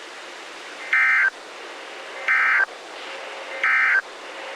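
Emergency Alert System end-of-message signal: three short bursts of SAME digital data tones, each about a third of a second long and about a second apart, over a steady radio hiss. The three bursts mark the end of the alert message.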